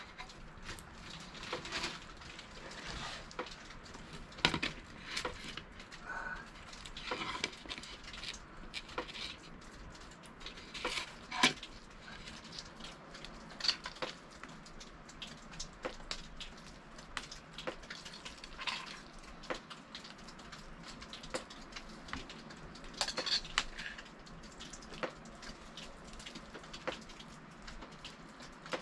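Cookware and utensils clinking and knocking at irregular intervals during campfire cooking, over a faint steady hiss.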